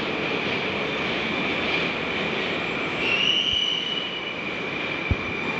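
Metro train running, with a steady noise and a high whine, and a brief high wheel squeal about three seconds in. A short low thump near the end.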